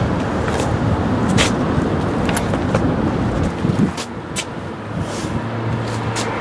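A motor vehicle's engine running nearby: a steady low hum and rumble of traffic, with a few short sharp clicks.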